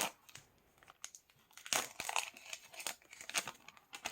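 Foil trading-card pack wrapper crinkling and tearing as it is ripped open by hand, in irregular crackly bursts.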